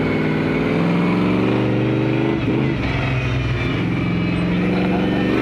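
Monster truck engine running on the move, heard from inside the open cab. Its pitch dips briefly about halfway through, then holds steady again.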